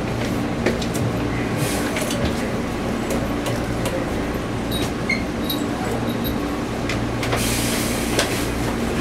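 Hankyu Kobe Line electric train running: a steady hum with a few held tones, scattered rail clicks, and a rush of hiss building about seven seconds in.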